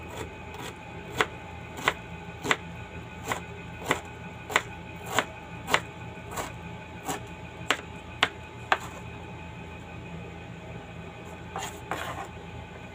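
Kitchen knife dicing an onion on a plastic cutting board: about fifteen slow, even chops, roughly one every half second, stopping after about nine seconds. Near the end, a brief scraping as the diced onion is pushed off the board into the salad bowl.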